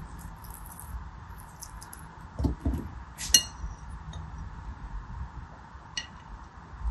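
Gel water beads and a serrated knife handled against a ribbed glass dish: light scratchy ticks, a few soft knocks, then a bright ringing clink on the glass about three seconds in and a lighter clink near the end.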